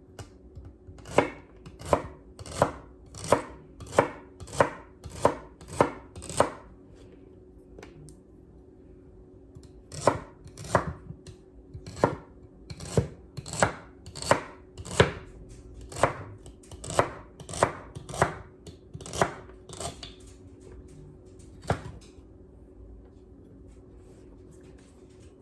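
Knife chopping celery stalks into small pieces, with sharp, even strokes about one every 0.7 seconds. The chopping pauses for a few seconds around 7 seconds in, resumes, and stops with a last single stroke a few seconds before the end.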